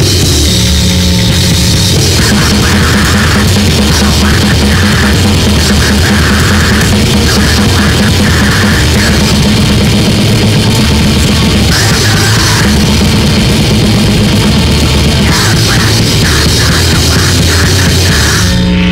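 A three-piece grindcore/powerviolence band playing loud and dense, heard through a rough, room-sounding demo recording.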